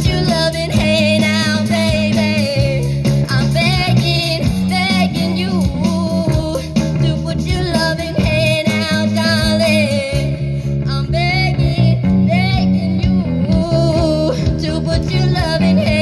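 Live rock band playing through a stage PA: drum kit, bass guitar and electric guitar, with a wavering lead melody over a steady beat.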